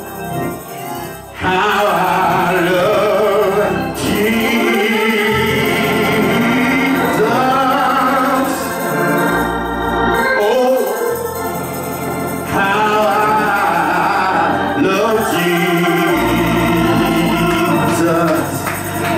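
A man singing a slow gospel song into a microphone, his voice holding long, wavering notes over sustained organ chords.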